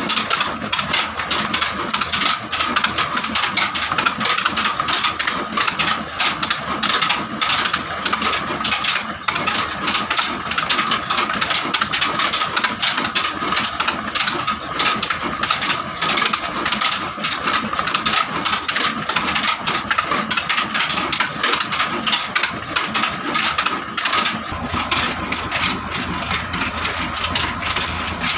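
Old black diesel engine running steadily, driving a line shaft of spinning iron pulleys and flat belts for a flour mill: a rapid, even clatter with a steady whine over it. The sound grows fuller and lower near the end.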